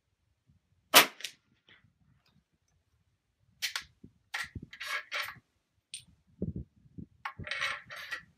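A single sharp shot from an Air-Ordnance MODOC rolling block air rifle, a cartridge-fed PCP rifle firing a heavy .357 pellet, about a second in. It is followed by quieter metallic clicks and scraping as the rolling block action is handled.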